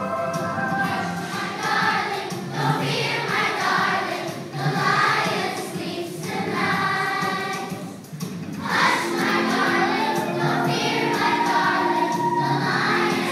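A group of young children singing a song together with instrumental accompaniment, with a short break between phrases about eight seconds in.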